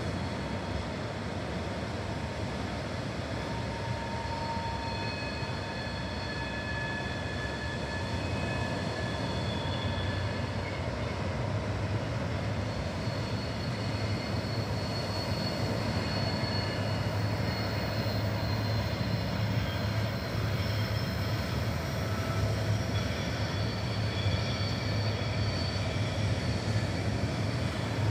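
TasRail diesel locomotives led by TR06 approaching with a train, a low engine drone growing steadily louder over the wash of surf on the beach.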